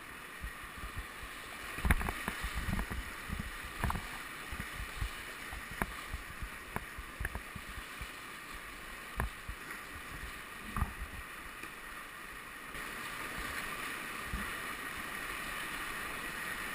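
River rapids rushing around a kayak, with irregular splashes and knocks from paddle strokes. The rush of water grows louder near the end as the boat drops into rougher whitewater.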